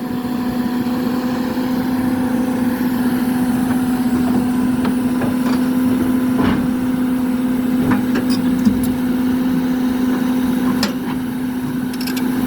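Hyundai 220-9S excavator's diesel engine running steadily with an even hum, with a few short knocks and clanks from the machine.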